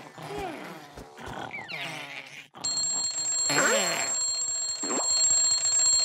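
Cartoon alarm clock bell ringing: a steady high-pitched ring that starts suddenly about two and a half seconds in and keeps going, with a short cartoon vocal cry over it. Before it, soft cartoon vocal sounds.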